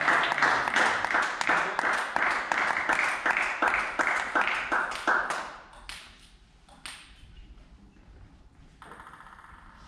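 Spectators clapping together in a steady rhythm, about four claps a second, dying away about five and a half seconds in; a single sharp tap follows a little later.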